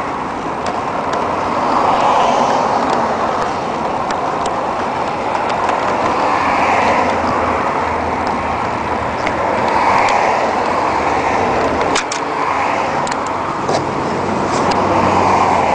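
Steady road traffic noise, rising and falling every few seconds, with scattered light clicks.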